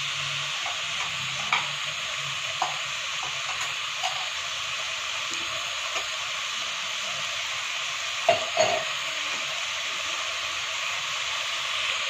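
Chicken and tinda pieces sizzling steadily in a steel pot after a splash of water, while a wooden spatula stirs them and knocks against the pot now and then, loudest twice about eight seconds in.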